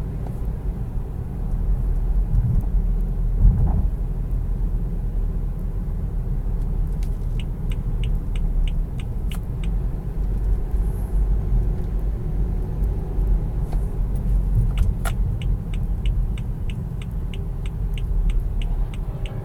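Low rumble of a car coasting, heard from inside the cabin. From about seven seconds in, a regular ticking comes in at about two a second, and there is a single sharp click a little later.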